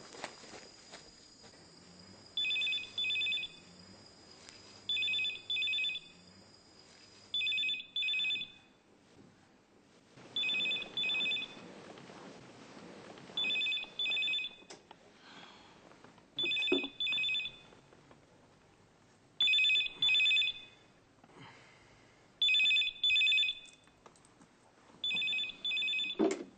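Telephone ringing in the double-ring pattern, two short rings and a pause, repeating about every three seconds: a call going through, not yet answered.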